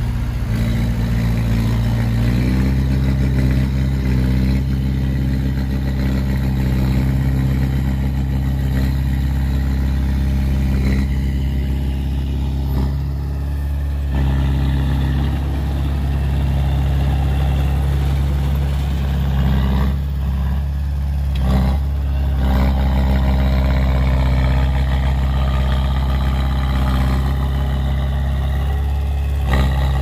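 Komatsu D20A crawler bulldozer's diesel engine running steadily as its blade pushes soil, with brief small dips in level twice.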